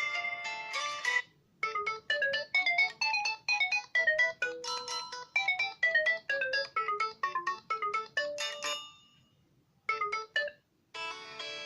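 LG K40S stock phone ringtones played one after another: one melody ends about a second in, then a new ringtone of quick, bright single notes climbing and falling plays for about seven seconds and fades out. A few of its notes sound again briefly, and another ringtone begins near the end.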